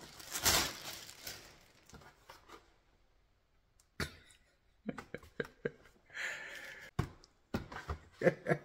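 Cardboard boxes being handled: a rustling scrape about half a second in, then after a pause a series of light knocks and taps as the boxes are set together and lifted, with a short laugh near the end.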